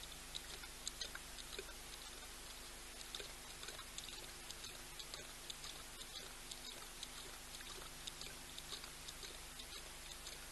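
Male lion lapping water at a waterhole: a run of faint, irregular wet clicks, several a second, over a steady hiss.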